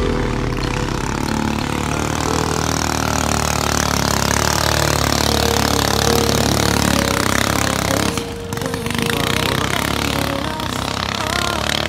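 Racing flat boat's engine running hard as the boat speeds along the river, with a brief dip in level about eight seconds in.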